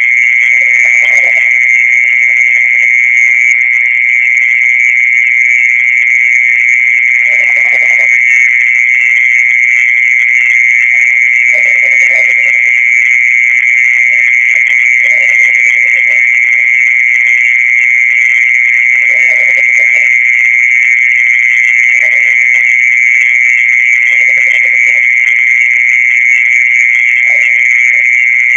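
A continuous, steady high-pitched trill with no break: the 'earthworm song' of Indonesian folk belief, which is in fact made by a mole cricket singing from its burrow. Shorter, lower calls come and go every few seconds underneath.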